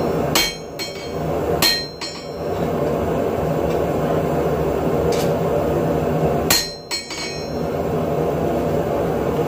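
Hand hammer striking a hot steel blank, a forged lawnmower blade, on an anvil. The blows ring and come in quick pairs: a few in the first two seconds, then two more about six and a half seconds in. Underneath runs the steady rushing roar of a dual-burner propane forge.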